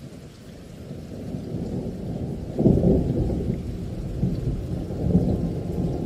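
Thunderstorm recording: thunder rumbling over rain, starting suddenly and swelling to its loudest about two and a half seconds in.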